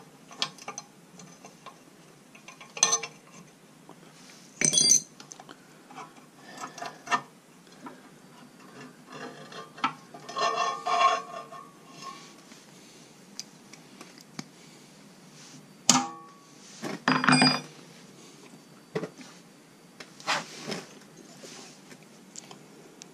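Metal clinks and clatters of a wrench and blade bolt against a wood chipper's steel flywheel and housing as the last blade bolt is undone and taken out. The clicks come scattered and irregular, with a few louder clatters among them.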